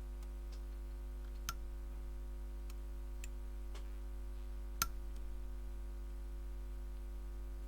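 A scattering of small, sharp clicks as a knife blade works at a tiny phone charging connector, the loudest one about five seconds in, over a steady low electrical hum.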